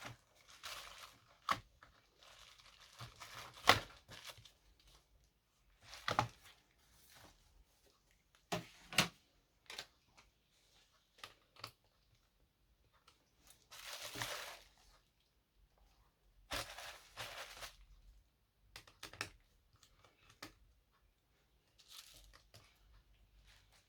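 Scattered clicks, taps and knocks of hands working on a Dell Latitude E5470 laptop and its parts during a drive upgrade, with two longer crinkling, rustling noises a little past the middle.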